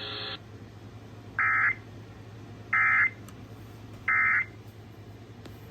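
Emergency Alert System end-of-message signal: three short bursts of SAME digital data tones, evenly spaced about a second and a third apart, marking the end of a severe thunderstorm warning broadcast over FM radio.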